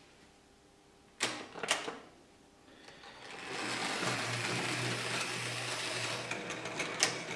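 Two sharp electromagnetic clicks about a second in, typical of a Märklin signal, turnout or relay solenoid switching. From about three seconds a Märklin model train's electric motor and wheels start running on the metal track. The running builds to a steady whir with a low hum, and one more click comes near the end.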